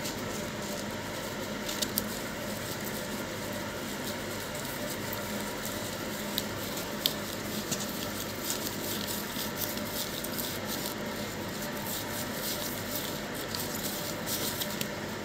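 Paper banknotes being flicked through and counted by hand: scattered faint paper flicks and rustles over a steady background hum.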